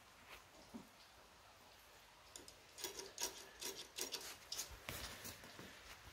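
Faint handling noise: a run of short rubs and clicks in the middle few seconds, with no engine running.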